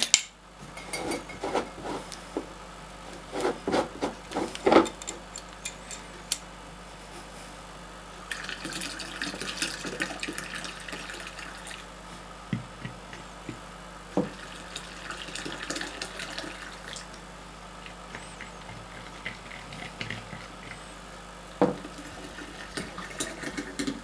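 Yeast starter being poured from a glass flask into a plastic fermenter of wort, a steady splashing pour in the middle of the stretch, with knocks and clinks of the flask and fermenter being handled at the start and again near the end.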